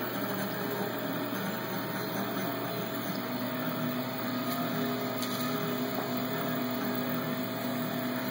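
Cerberus delta 3D printer's stepper motors whining as it prints, a few steady tones that jump to new pitches with each change of move, over a steady whir.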